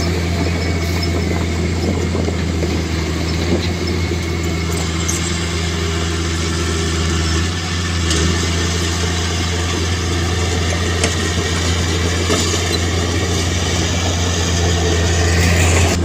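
A heavy earthmoving machine's diesel engine running steadily at a constant pitch, with a brief dip about halfway through and a few light clicks over it.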